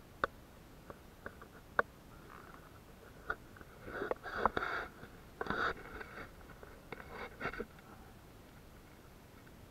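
Handling noise and footsteps on bare rock: a few sharp clicks, then short bursts of scuffing and scraping about four, five and a half, and seven seconds in.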